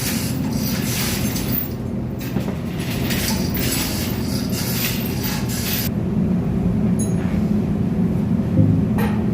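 Steady drone of running ship engine-room machinery, with a loud hiss over roughly the first six seconds and a couple of sharp metallic clicks near the end.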